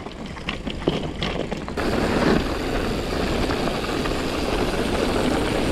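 A mountain bike riding down a trail, heard through an action camera's microphone. The first second or two holds scattered clicks and rattles; from about two seconds in, a steady rush of wind and tyre noise takes over.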